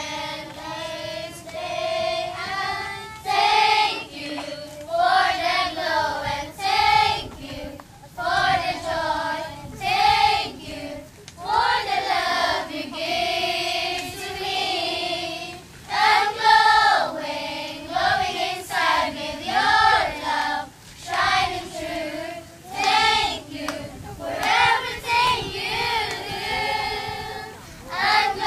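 A group of young girls singing a song together, in sung phrases with short breaks between them.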